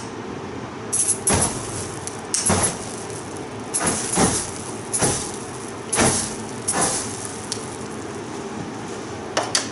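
Aerosol can of starting fluid (ether) sprayed in several short hissing bursts through a lighter flame, the spray catching fire in flares. A steady low hum runs underneath.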